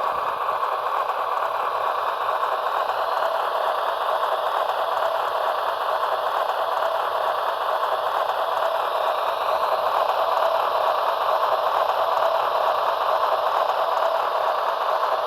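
HO scale Union Pacific Dash 9 model's onboard sound system playing a diesel engine running sound through its small speaker, a steady, thin-sounding rumble with little bass.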